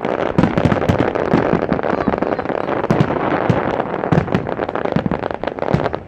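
Fireworks display going off in a dense barrage: rapid, overlapping bangs and crackling shell bursts with no gaps.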